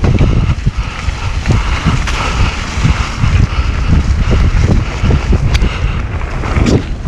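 Mountain bike ridden fast over a bumpy dirt trail: wind buffeting the microphone over tyre rumble, with irregular knocks and rattles from the bike over bumps.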